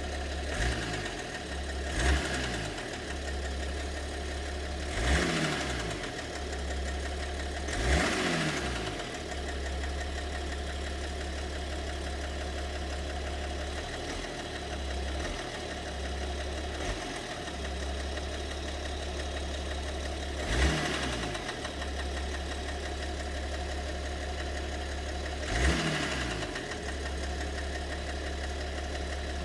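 BMW 730d M57 straight-six diesel idling steadily, with an irregular loud knock every few seconds, about six in all. This is the unexplained knock in the engine that the owner is trying to diagnose, which he suspects may involve one or two cylinders.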